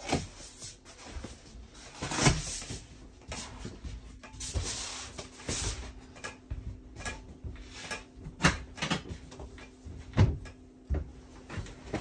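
A travel-trailer Murphy bed being unlatched and folded down over the sofa: a string of irregular knocks and clunks from the bed panel and its hinges, with cushions being shifted. The loudest knocks come about 2 s in and twice more near the end.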